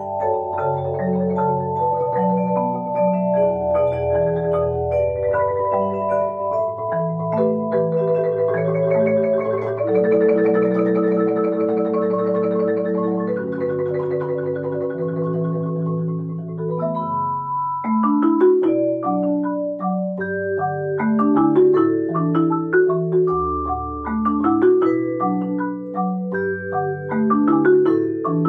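Marimbas and vibraphone playing in ensemble: long held, layered notes for the first half, then about 17 seconds in the texture thins and turns to short, separated notes over deep low bass notes.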